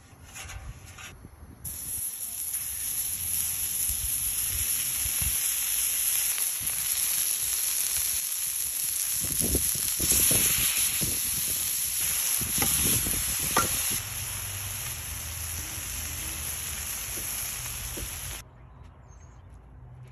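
Ground beef and sliced onions sizzling loudly on a hot flat-top griddle as smash burgers are pressed flat. A run of low thumps and scrapes from the burger press against the griddle comes in the middle. The sizzle cuts off near the end.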